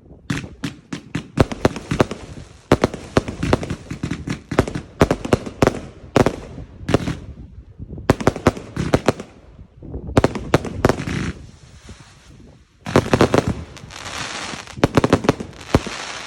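Consumer firework cakes firing: rapid volleys of sharp bangs with brief pauses between them, and a dense stretch of crackling near the end.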